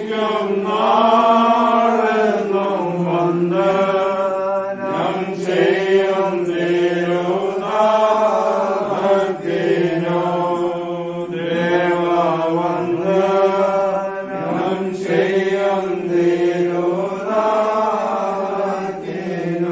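Slow devotional hymn singing in long, drawn-out phrases over a steady low drone note.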